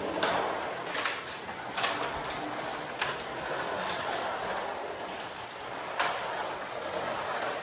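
Carrera 1/32 slot car running laps on its plastic track: a steady motor and tire whir that swells and fades as the car comes round, with a few sharp ticks. The wheels have been trued for polyurethane tires, so the car runs without the growl of tires rubbing on the wheel.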